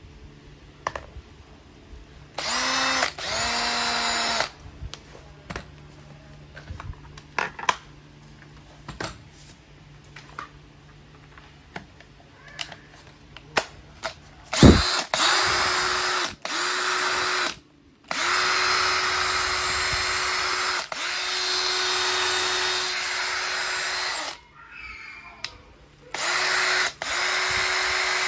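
Makita DHP485 18V cordless hammer driver-drill running free in a series of trigger pulls: a short run near the start whose pitch sinks as the trigger eases off, then after a sharp click, several runs at one steady pitch, the longest about six seconds. Light clicks from handling the drill fall between the runs.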